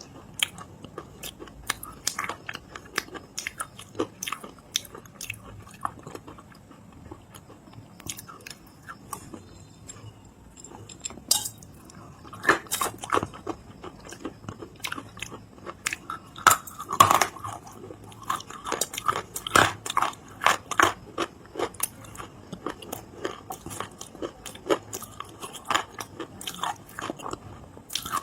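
Biting and chewing of crunchy edible clay: irregular crisp crunches and crackles, sparse at first, then denser and louder from about twelve seconds in.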